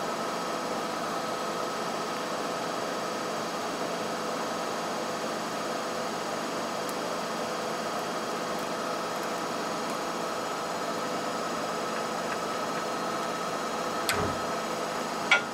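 Steady machine hum with a hiss under it and a few fixed tones. Two short metallic clicks come near the end, a little over a second apart, from an Allen key being handled at the riveter's steel nose. The second click is the louder.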